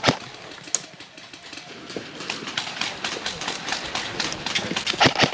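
Airsoft guns firing scattered shots, a rapid run of sharp clicks and pops. There is a loud crack at the very start and another cluster near the end.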